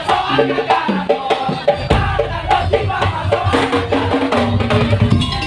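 Madurese tong-tong ensemble playing: dense rhythmic wooden and drum percussion under a melodic line of held, stepping notes.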